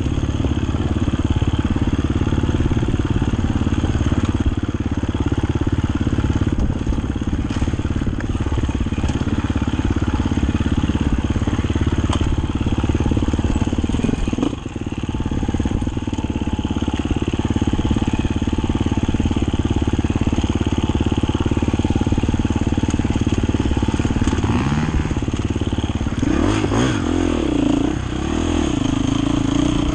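Enduro dirt bike engine running at fairly steady revs, dipping briefly about halfway through, then revved up and down several times near the end.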